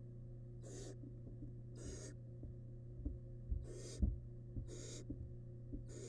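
Barn owl nestlings' hissing begging calls: five short harsh rasps, about one a second. A few soft thumps from the chicks moving in the nest box come midway, over a steady electrical hum.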